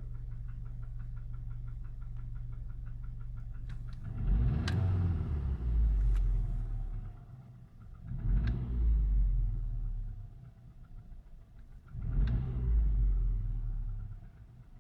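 VW 1.4 TSI twincharged (CAVD) petrol engine after a cold start, idling with a rapid, even knock, then revved up three times about four seconds apart. The knock persists despite a new timing chain set and fresh oil.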